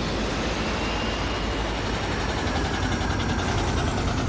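Cartoon sound effect of a vehicle engine running steadily, a low hum under a noisy wash.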